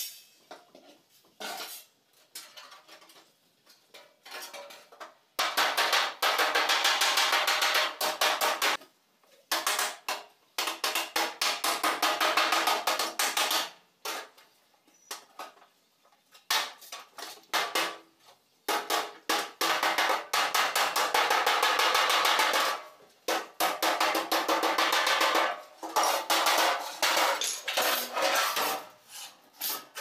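A hand hammer rapidly striking a galvanized sheet-metal duct fitting, knocking its folded seam edges closed. The blows come in fast runs of a few seconds each, with short pauses and a few single knocks between them.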